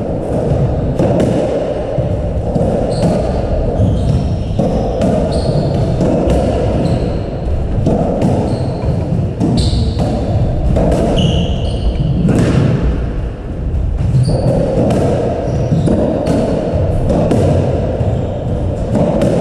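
Squash rally: the ball cracking off the racket strings, the walls and the wooden floor in a quick irregular run of hits, with short high squeaks of court shoes on the floor, over a constant low rumble in the court.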